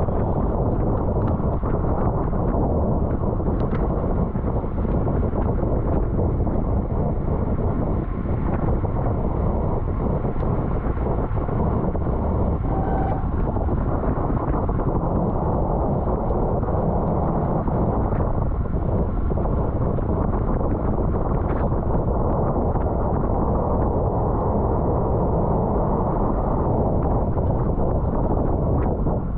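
Steady wind noise on the microphone of a rider's camera on a racing bicycle at speed, a constant low rumbling rush with no pauses.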